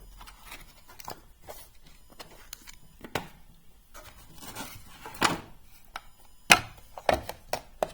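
Scattered clicks and knocks of small metal machinist tools and their cases being handled and set down, with a few sharper knocks in the second half.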